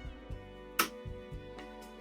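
Soft background music of sustained instrument notes over a low, regular beat, with one sharp click about 0.8 s in.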